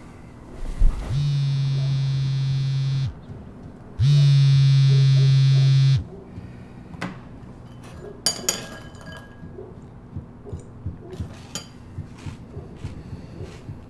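A smartphone vibrating against a hard wooden tabletop: two steady buzzes about two seconds long, a second apart. Light clicks and taps follow.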